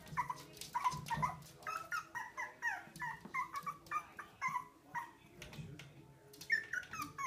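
Pomeranian puppy giving a rapid string of short, high-pitched yips and whines, two or three a second, at its own reflection in a mirror.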